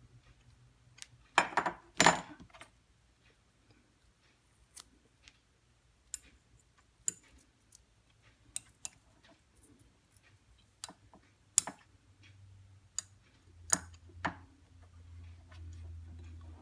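Small metal tools being handled and set down: scattered clicks and knocks, with a louder clatter about a second and a half in. A faint low hum comes in near the end.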